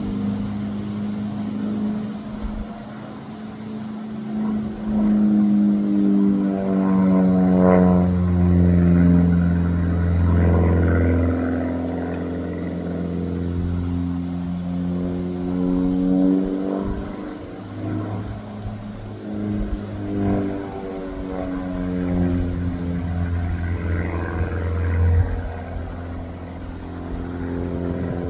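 A small biplane's piston engine and propeller droning overhead. The note rises and falls in loudness and pitch as the plane manoeuvres, loudest about five to eleven seconds in, where it slides down in pitch as the plane passes.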